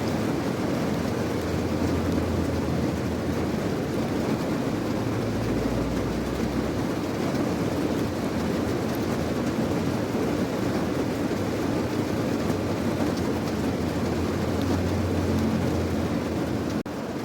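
Steady heavy rain with a deep low rumble beneath it. The sound drops out for an instant near the end.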